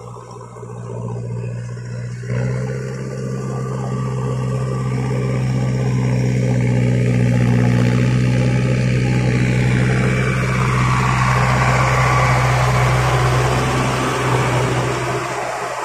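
Mahindra Arjun Novo 605 tractor's diesel engine running at a steady pitch under load, jumping louder about two seconds in and growing louder as it comes close. In the later part a rising hiss joins it as the rotary tiller churns wet paddy mud.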